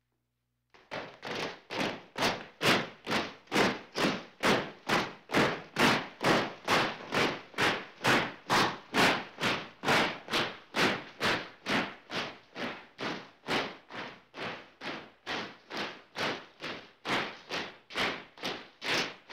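Marching feet stomping in a steady, even rhythm of about two and a half steps a second, starting after a brief silence.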